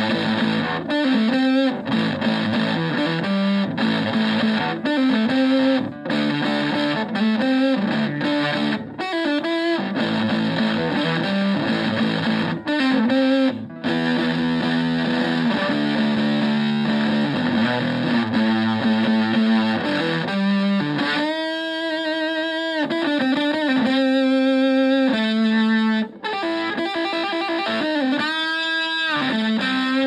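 Stratocaster electric guitar through a Vox Tone Bender-style fuzz pedal ('The Bat') into a Twin Reverb-style amp, playing distorted chords and riffs. About two thirds of the way in it moves to held single notes with wavering pitch, separated by short gaps.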